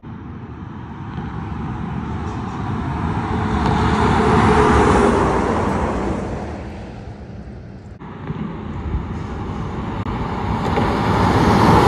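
Heavy trucks driving past on a highway one after another: engine and tyre noise swells as the first passes close by about four to five seconds in and fades, then a second truck approaches and passes close near the end.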